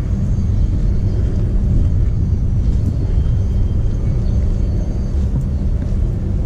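Wind buffeting the camera's microphone: a continuous, uneven low rumble.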